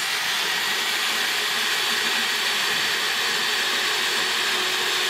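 Ryobi cordless drill running steadily with a long black oxide bit, boring a deep hole through the steel side of a shipping container. The motor holds one even speed throughout.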